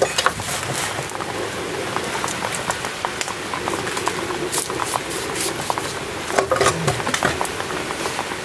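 Steady hiss with scattered light clicks and clinks of metal suspension parts being handled, a little busier about six seconds in.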